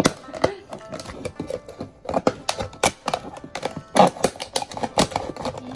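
Knife sawing through a thin clear plastic food container, the plastic crackling and snapping in quick irregular clicks, the loudest snap about four seconds in.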